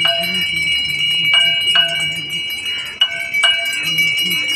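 Aarti bells ringing continuously: a steady high ringing with sharper strikes about every second, over voices.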